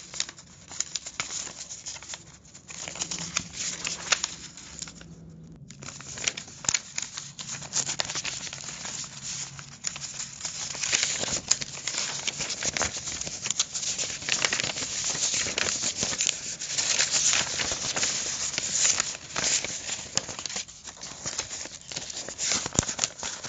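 Paper being crumpled and rustled by hand: a dense run of crackles with a short pause about five seconds in.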